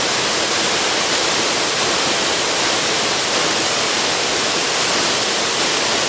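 Waterfall pouring over tiered rock ledges into a pool: a loud, steady rush of water that does not let up.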